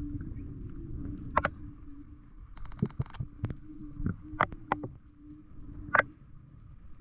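Underwater sound during a freedive descent: a steady low hum with scattered sharp clicks and knocks, including a quick rattle of clicks about three seconds in and a louder click near the end.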